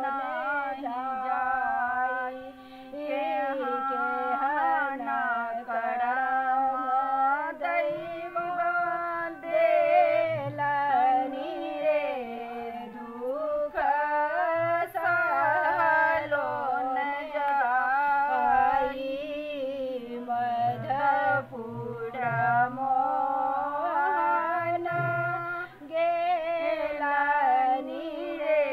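Women's voices singing a folk song with no instruments seen, the melody held and bent in long phrases with brief breaths between them.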